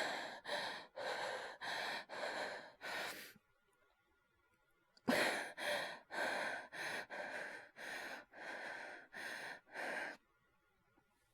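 A feverish man's heavy, rapid breathing, acted and close to the microphone: two runs of quick, audible breaths, about two to three a second, with a short pause of about a second and a half between them.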